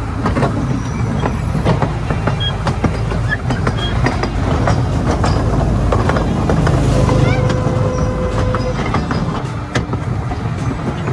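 Small open trolley train running along its rails with a steady low rumble and many quick clicks and knocks from the wheels over the track, rough and rickety. A brief steady whine sounds about seven seconds in.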